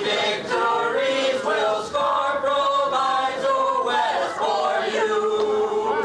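A small group of men and women singing a school song together, holding long notes.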